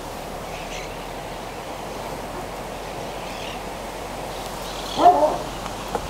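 Outdoor garden ambience: a steady, even background hiss with faint bird calls. A brief pitched call sounds about five seconds in.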